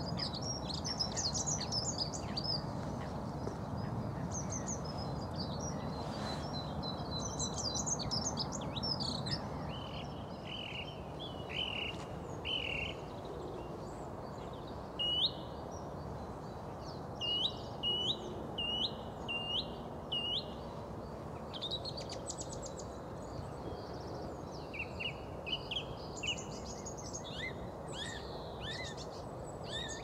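Small songbirds singing, beginning with a dunnock's fast, high, jangling warble. Other birds' song and calls follow, including a run of five sharp separate notes about halfway through, over a steady low background noise.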